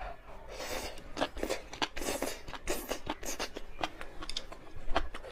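Close-miked eating of spicy rice noodles with tofu skin: short bursts of slurping and wet, crunchy chewing, with quick clicks throughout.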